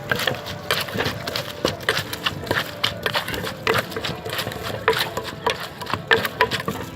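Papaya salad being pounded with a wooden pestle in a mortar: repeated knocking strokes, about two to three a second, with ingredients mashing and rattling between them.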